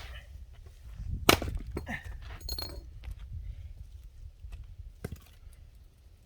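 A single sharp, loud strike about a second in, followed by a few fainter knocks and clinks over a low rumble.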